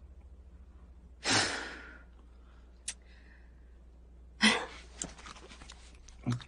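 A person sighing out about a second in, then a single small click, then another breath a little past the middle followed by a run of small clicks and rustles, over a faint low hum.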